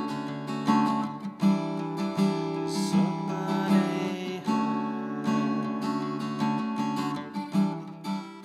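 Ending music: an acoustic guitar strumming steady chords, getting quieter toward the end.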